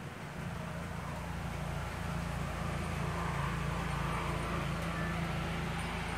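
A steady low mechanical hum with an even rushing noise over it, a little louder from about two seconds in.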